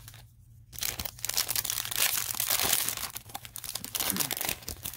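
A foil Yu-Gi-Oh booster pack wrapper being torn open and crinkled by hand. A dense, crackling rustle starts about a second in and stops just before the end.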